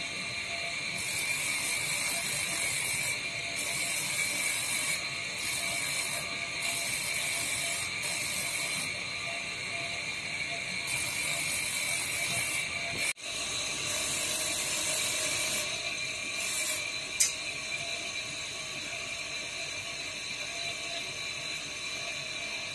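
Electric gem-grinding machine running with a steady whine, and a high grinding hiss that starts and stops every second or two as an agate stone is pressed against the spinning wheel and lifted off.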